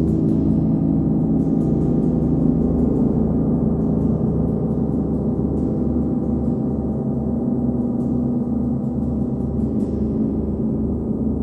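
A 39-inch Nepalese wind gong sounding a dense, sustained low wash, kept going by repeated light strokes of a hard rubber ball mallet. A slow pulsing throb runs underneath.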